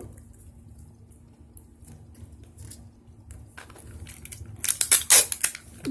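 Clear sticky tape being handled and then pulled off its roll in a few quick, loud rasping rips, mostly in the last two seconds, after a stretch of faint handling sounds.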